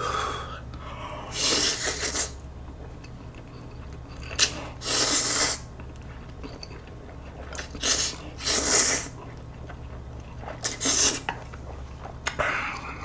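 Spicy Buldak fried noodles slurped from a bowl with chopsticks: about five loud slurps a couple of seconds apart, with a few short clicks between them.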